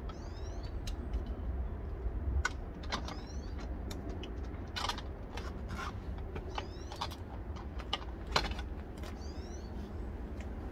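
Thule Hullavator Pro kayak carrier being unpinned and lifted out of its roof-rack bracket: scattered clicks and knocks of its metal and plastic parts, over a steady low outdoor rumble. A small bird chirps a few times.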